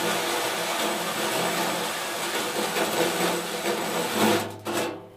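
Cordless drill driving a hole saw through the sheet-metal top of an electrical enclosure, a steady cutting noise of teeth on metal and drill motor. It surges briefly louder and then stops about five seconds in.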